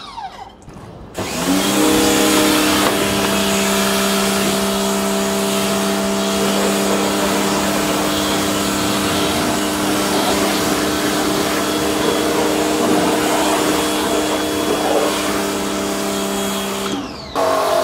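Electric pressure washer's motor starting up about a second in and running at a steady pitch over the hiss of the high-pressure water jet. Near the end it cuts out briefly and starts again.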